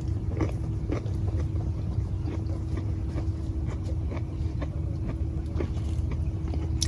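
A steady low rumble with a constant hum, and a few faint clicks over it.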